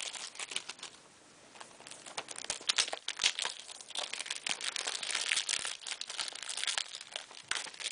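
Crinkling and rustling of packaging as a Blu-ray and DVD combo pack is handled and opened, with irregular sharp crackles throughout and a short lull about a second in.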